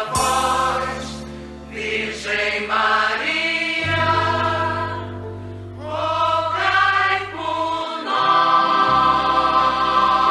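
Slow music with long held chords over sustained bass notes, with a choir-like sound; the bass changes note about four seconds in and drops out briefly near eight seconds.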